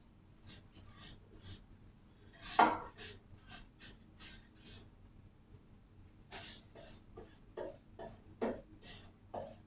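Paintbrush strokes on a wooden nightstand, brushing on a first coat of paint: a run of short scratchy swipes about twice a second, with one louder stroke about two and a half seconds in.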